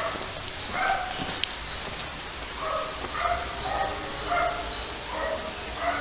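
A dog barking in short repeated yips, the calls coming more often in the second half.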